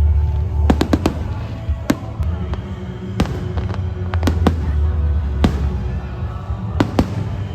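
Fireworks going off in a series of sharp, irregular cracks and pops, some in quick clusters, over a steady low rumble.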